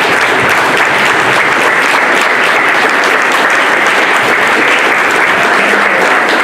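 Audience applauding: steady, dense hand-clapping from a roomful of people.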